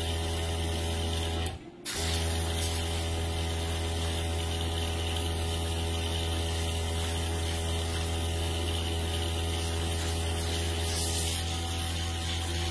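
Airbrush spraying nail paint with a steady hiss of air, over the steady hum of its small air compressor. Both drop out briefly about a second and a half in.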